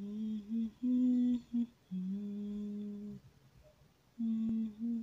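A man humming a slow tune in low, long held notes, broken by short pauses.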